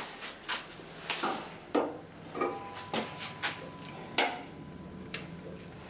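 Irregular clicks and knocks of a power cord and plug being handled and plugged in, with a faint steady tone for about a second and a half in the middle.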